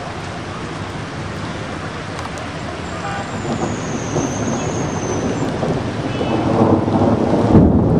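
Heavy rain pouring steadily in a thunderstorm, with a low rumble of thunder building near the end.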